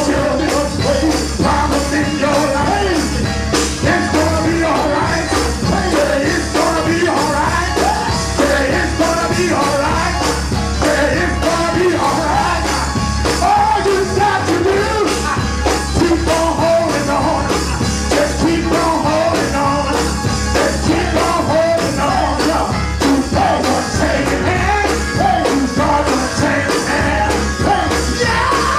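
Gospel band music with singing, a steady full-band groove.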